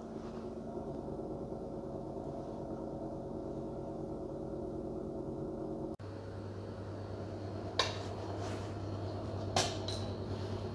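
Steady hum of refrigerated vending and milk-dispensing machines. After a cut the hum turns deeper, and near the end come two sharp clinks about two seconds apart, a glass bottle knocking against the machine's metal.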